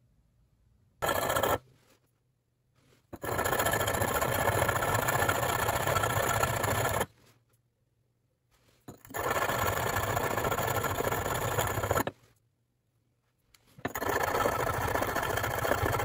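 Metal bottom sealing face of a faucet cartridge ground against a sharpening stone: a gritty scraping that comes in a short run, then three long runs of several seconds each, with pauses between. This is the corroded, rough sealing surface being polished smooth so that the valve seals again.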